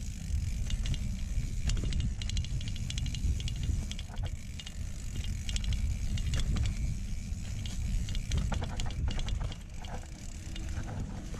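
Mountain bike riding down a dirt singletrack: the rear hub's freehub ticks in rapid runs as the rider coasts, with chain and frame rattle over the bumps. A heavy low rumble of wind and trail vibration on the handlebar camera is the loudest part.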